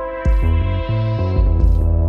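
Electronic music played live on Roland Boutique synthesizers and a drum machine. A pulsing synth bass line runs under a held synth chord, with two short hi-hat hits.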